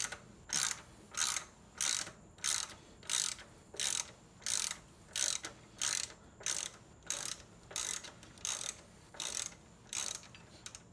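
Hand socket ratchet clicking on a motorcycle rear shock's top mounting bolt, about two strokes a second in a steady rhythm, each back-swing a short burst of pawl clicks.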